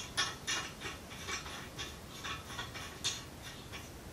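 Small metallic clicks and ticks, irregular at a few a second, from the brass inlet nut of an oxygen regulator being hand-threaded onto the cylinder valve. One click about three seconds in is a little louder.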